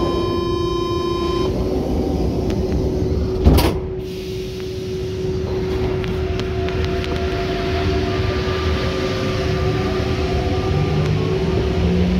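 Inside a rubber-tyred MP89CC Paris Métro train: the door-closing buzzer sounds until about a second and a half in, then the sliding doors shut with one loud knock. From about six seconds in the traction motors whine, rising in pitch as the train accelerates away from the station, over a steady hum and rumble.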